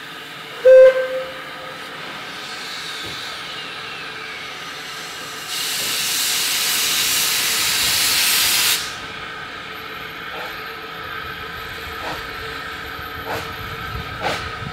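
Replica Baldwin 2-6-2T narrow-gauge steam tank locomotive No. 762 'Lyn' gives one short toot on its whistle, the departure signal. About five seconds later comes a loud rush of venting steam lasting about three seconds, which cuts off suddenly. Slow, uneven exhaust chuffs follow as the engine starts to move off with its train.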